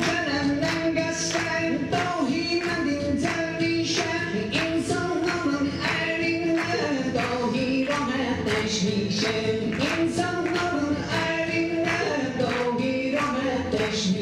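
A song: a voice singing a melody over a steady beat of percussion strokes.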